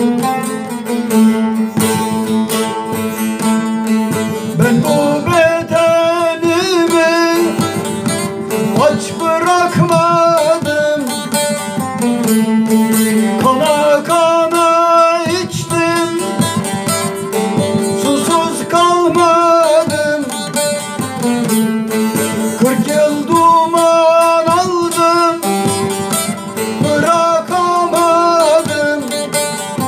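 A bağlama (long-necked Turkish saz) plucked and strummed in a folk tune over a steady low drone, with a man's voice singing long wavering phrases over it about six times.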